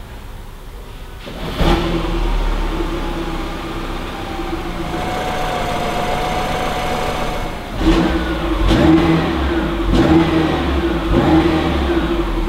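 The 1.6-litre turbocharged four-cylinder petrol engine of a Peugeot 408 GT Hybrid starts about a second and a half in and runs at a steady idle. From about eight seconds in it is revved in four short blips while the car stands still.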